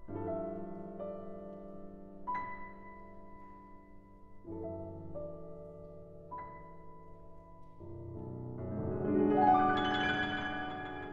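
Background piano music: slow, held notes and chords struck every couple of seconds, building to a fuller, louder passage about nine seconds in.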